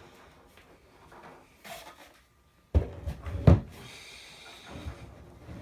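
Handling knocks as a speaker is set down and positioned: two sharp knocks a little under a second apart about three seconds in, then a short scrape.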